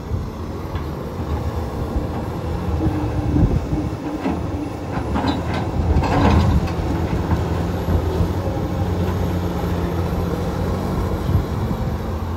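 Komatsu PC210LC-10 hydraulic excavator's diesel engine working steadily under load while it digs, with a few clunks and scrapes of concrete chunks in the bucket and thumb about three, five and six seconds in.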